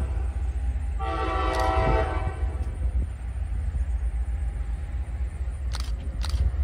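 A locomotive's air horn sounds twice: the end of a short blast at the start, then a longer blast of about a second, starting about a second in. A steady low rumble runs underneath, and two short clicks come near the end.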